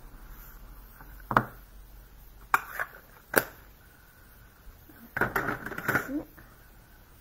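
Plastic stamping tools being handled and set down on a desk: an acrylic stamp block and an ink pad case make three sharp clicks and knocks, then a short cluster of clattering about five seconds in.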